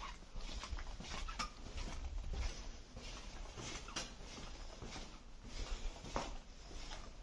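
Footsteps on a floor strewn with debris: irregular faint scuffs and clicks, over the low rumble of a handheld camera being carried.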